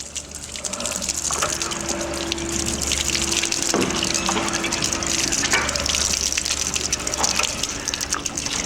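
Water gushing through a plumbing fixture and its drain line, a steady rush that swells about a second in.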